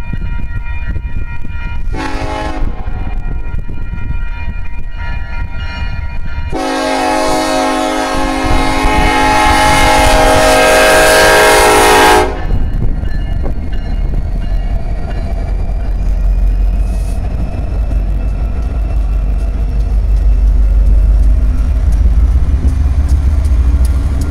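Union Pacific diesel locomotive horn sounding for a grade crossing: a short blast about two seconds in, then a long blast from about six to twelve seconds, over the steady ringing of the crossing bell. After the horn, the four-unit locomotive consist's diesel engines run past at low speed, getting louder near the end.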